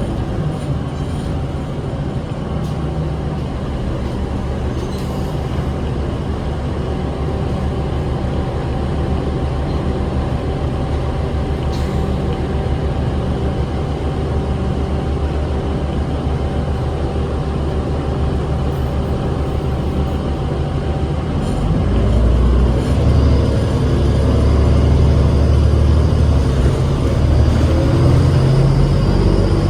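Cabin ride noise of a 2008 New Flyer D40LF city bus: its Cummins ISL 8.9-litre six-cylinder diesel running with road noise. The engine grows louder about three-quarters of the way through.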